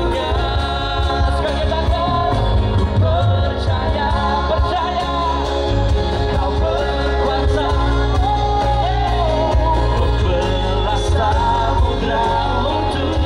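Live band playing a Christian worship song: a man singing into a microphone over drums, electric bass and guitars.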